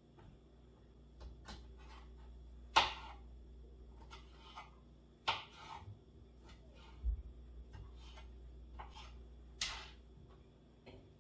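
A kitchen utensil scraping and knocking against a casserole dish as food is spooned in: a few short, sharp scrapes a few seconds apart, with a soft thump midway.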